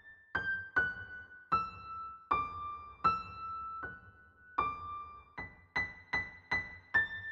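Background music: a slow melody of single high keyboard notes, each ringing and fading before the next.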